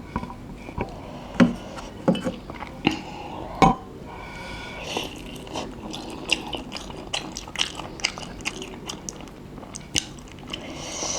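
Close-miked eating of spicy instant noodles: chewing and biting, with many short clicks and a few louder knocks, mostly in the first four seconds, typical of utensils against a bowl.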